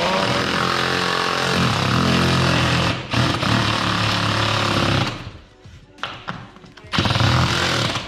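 Cordless power driver running under load, driving a screw through a steel TV wall bracket into a wall stud. It pauses briefly about three seconds in, eases off from about five seconds with a few short pulses, and runs hard again near the end.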